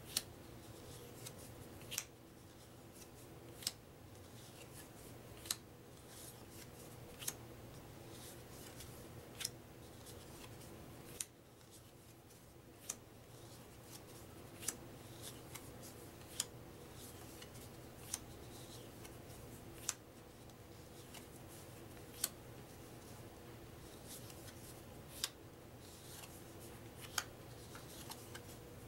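Paper game cards being laid one at a time onto a pile on a wooden table: a sharp, light snap about every two seconds over a faint steady hum.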